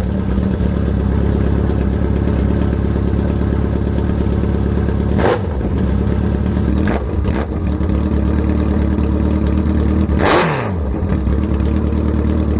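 2003 Kawasaki Z1000's inline-four engine running very loud through Danmoto XG-1 slip-on mufflers, idling with several short throttle blips, the biggest rev about ten seconds in.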